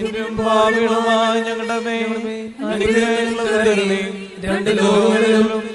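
Syriac liturgical chant: a single voice holding long, gliding notes on a steady reciting pitch, in phrases broken by short breaths about two and a half and four and a half seconds in.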